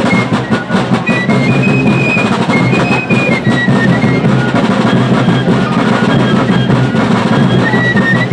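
Fife and drum corps playing: fifes carry a high tune over rapid snare drumming and bass drum beats.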